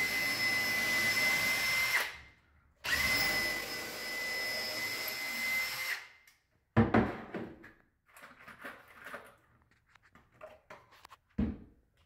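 Brushless cordless drill/driver motor running with a steady high whine for about two seconds, stopping briefly, then running again for about three seconds. After that come a few scattered knocks and clunks of the tool and wood being handled.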